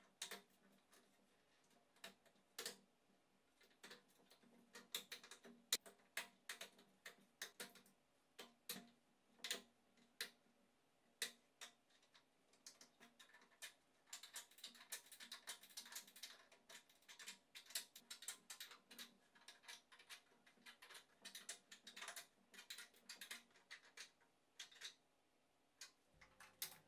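Faint, irregular clicks and light taps of 3D-printed plastic shelf clamps being handled, fitted and tightened onto wooden dowel posts, with a denser run of small ticks about halfway through.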